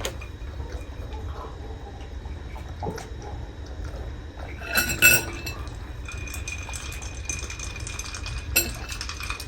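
Cutlery clinking against dishes at a meal, with two sharp clinks close together about five seconds in and another near the end.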